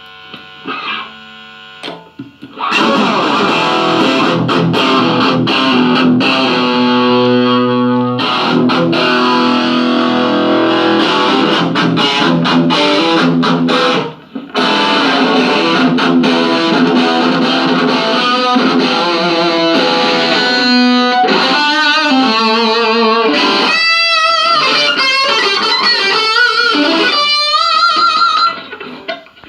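Electric guitar played through a Belcat 15G guitar amplifier with its effect on, sounding distorted: a few quiet notes, then loud chords and riffs, a brief stop about halfway, then single-note lead lines with wide bends and vibrato.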